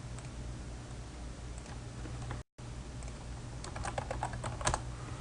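Computer keyboard keys clicking in a short burst of typing about two-thirds of the way in, with a few faint clicks earlier, over a steady low electrical hum. The sound cuts out completely for a moment near the middle.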